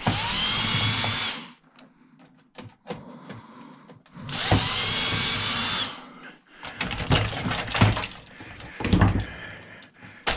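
Cordless drill-driver backing out screws: two runs of about a second and a half, each spinning up to a steady whine. Then, from a little past the middle, irregular clicks and clatter of loosened parts being handled.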